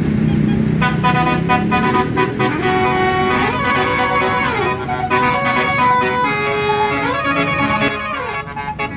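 Tour bus basuri melody horn playing a tune: a run of pitched horn notes stepping from one to the next, with sliding pitch drops midway and near the end. Starts about a second in, over a bus engine rumble.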